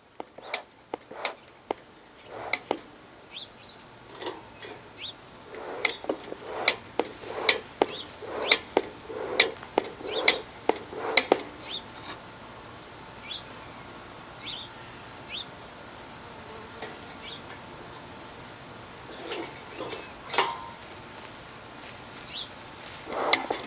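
A run of sharp clicks and knocks, densest and most regular in the middle, about one every three-quarters of a second, with small birds chirping briefly now and then.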